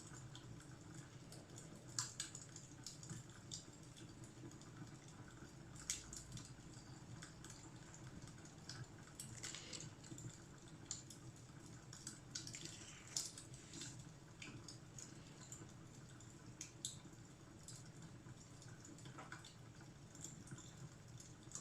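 Fireplace fire crackling faintly: scattered, irregular pops and snaps over a low steady hum.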